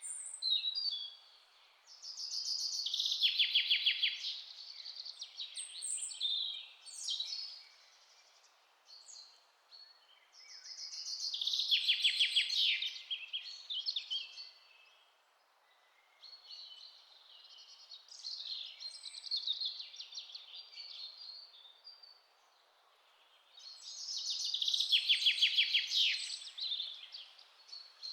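Songbirds singing in a forest. A loud song phrase a couple of seconds long, with a fast trill, comes about three times, roughly every eleven seconds. Softer chirps fill the gaps, over a faint steady hiss.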